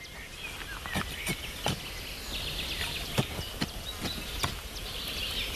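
Hand trowel digging a planting hole in dry, clumpy garden soil: a handful of sharp scrapes and ticks over a steady outdoor background. A high, even chirring comes in a little over two seconds in.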